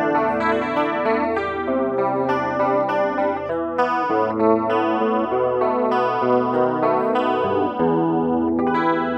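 Electric guitar picking a run of notes and chords through a homemade STM32-based effects pedal set to a modulation effect, the notes wavering slowly in pitch.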